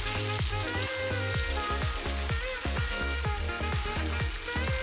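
Hot oil tempering (baghar) sizzling as it is poured onto a pot of cooked daal, a steady hiss of oil meeting the liquid. Background music plays along.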